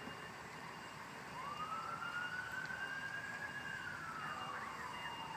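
An emergency vehicle's siren wailing, starting about a second in: one slow rise in pitch, a hold, then a slow fall near the end.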